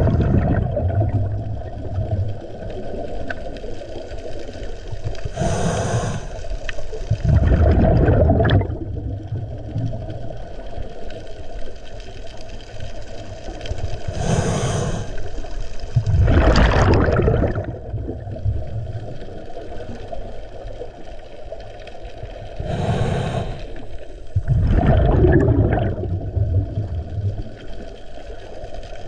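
Scuba diver breathing through a regulator underwater, three times: each breath is a short hiss on the inhale, then a longer, louder burble of exhaled bubbles about a second later.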